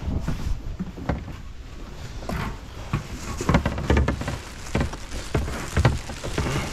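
Irregular knocks and rustling of kayak gear being handled, over a low rumble of wind buffeting the microphone.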